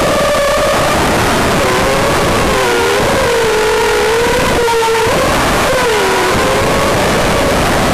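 FPV quadcopter's brushless motors and propellers whining, the pitch wavering up and down with the throttle, over a steady rushing noise.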